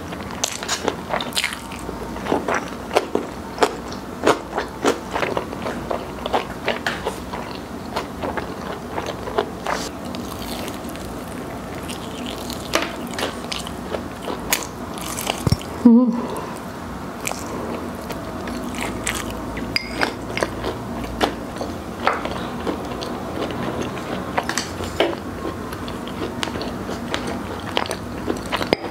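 Close-miked chewing and crunching of fried chicken: a dense run of sharp crunches and wet mouth sounds. About halfway through there is one brief louder sound and a split-second break.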